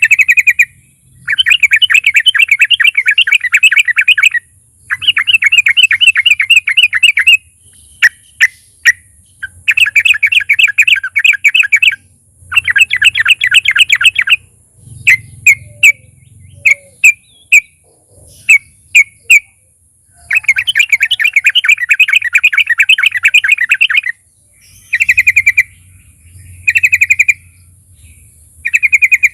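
Yellow-vented bulbul (trucukan) singing loudly: long rapid chattering phrases of two to four seconds alternate with runs of short, separate whistled notes.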